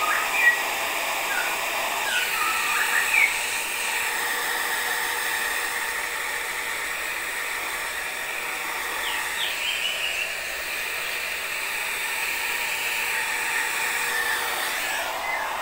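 Handheld hair dryer blowing steadily as it dries a wet long-haired cat's fur.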